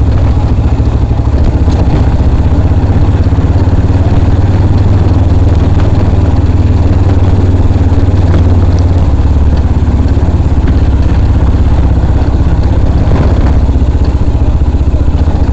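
Motorcycle engine running steadily with a low, even drone.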